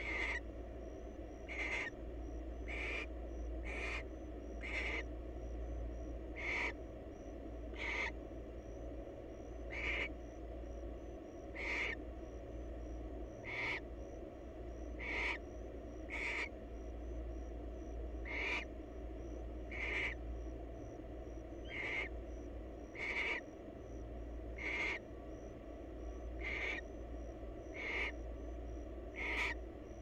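Barn owl calling over and over in short, harsh, breathy bursts, about one every second and a half, as a pair court in their nest box. A steady low hum runs underneath.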